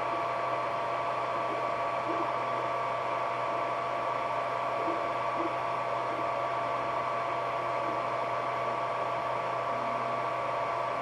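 Ender 3D printer running, a steady whir of its fans and motors with a constant two-note whine and low hum over a hiss.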